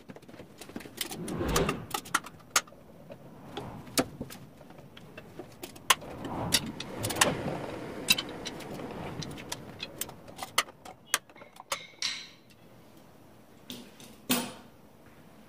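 Wooden chair spindles clicking and clattering against each other as they are pulled out of the Windsor chair seat and laid down with the others, with a scatter of sharp knocks and a couple of longer rubbing sounds.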